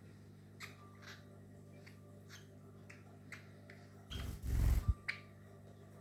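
Pet cage birds (Java finch and lovebirds) giving short, sharp chirps about every half second, over a steady low hum. About four seconds in, a louder rustling thump lasts nearly a second.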